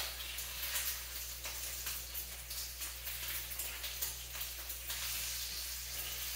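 Bacon frying in a pan: a steady sizzle full of small crackles and pops, over a low steady hum, with a sharper click right at the start.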